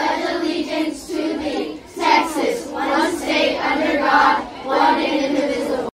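A group of children's voices reciting the Texas pledge in unison, phrase by phrase, cut off suddenly near the end.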